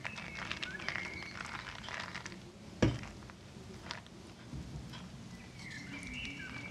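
Hands laying and pressing softened savoy cabbage leaves into a leaf-lined dish: soft wet rustles and small clicks, with one sharp thump about three seconds in and short high squeaks near the start and again near the end.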